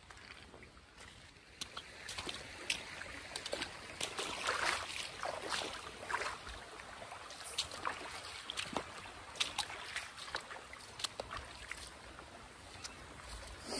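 Feet wading through a shallow creek: irregular splashes and sloshes of water, busier after the first couple of seconds.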